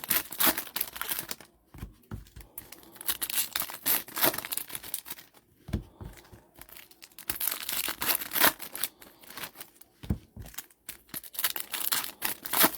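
Trading-card pack wrappers being torn open and crinkled, with cards handled, in irregular bursts of rustling.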